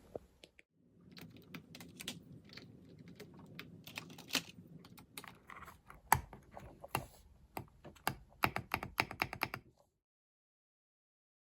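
Typing on a mechanical keyboard (EPOMAKER x AULA F99 PRO with Akko Rosewood switches and MOG-profile keycaps): a stream of key clacks, quickening into a fast run near the end before stopping abruptly.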